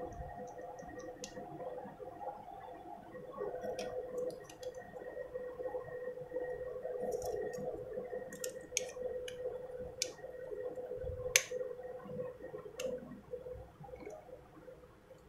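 Scattered small sharp clicks and taps of a plastic two-pin plug and a screwdriver being handled as the plug is fitted onto an iron's cord, the sharpest click about eleven seconds in. A faint steady hum runs underneath.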